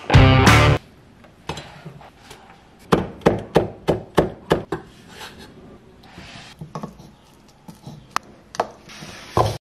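A broad-bladed knife chopping dill on a wooden cutting board, a quick run of knocks about three a second. Then a spoon stirs chopped dill into mayonnaise in a small plastic cup, with soft scraping and a few sharp taps.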